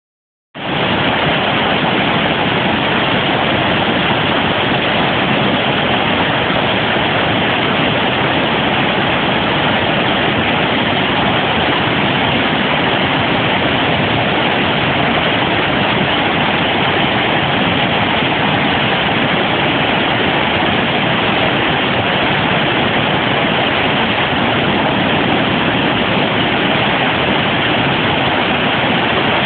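Water pouring over a low rock-ledge waterfall and churning through the rapids below: a loud, steady rush that starts about half a second in.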